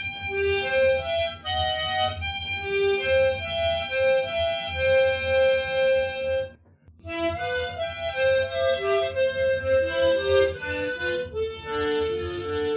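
A harmonica playing a slow melody of held notes, dry and unreverberated, with a brief pause about halfway through before the tune resumes.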